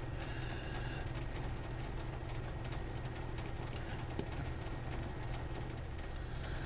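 Steady low background hum, with faint small ticks and clicks as a precision screwdriver turns the tiny case-back screws of a wristwatch.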